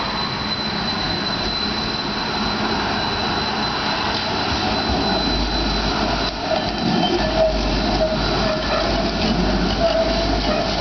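Stadler Variobahn tram approaching and passing close on its rails, its running noise building to a low rumble from about halfway, with a thin high steady tone in the first half. In the second half a wavering squeal sets in as the wheels take the curve.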